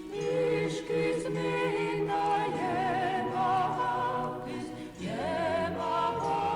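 Voices singing a cappella in choir-like harmony, several held notes with vibrato moving in steps; the phrase breaks off about five seconds in and a new one rises in. The singing has a solemn, church-like sound.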